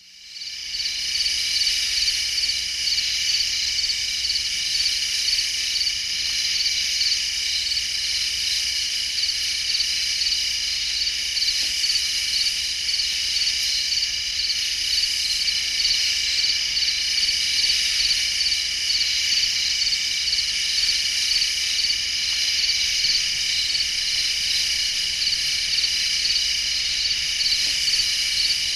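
Dense, steady chorus of calling insects, high and shrill with a fast pulsing trill in it, fading in over the first second.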